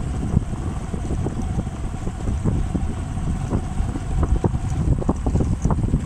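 Wind buffeting the microphone in irregular gusts over a steady low rumble from a running motorcycle.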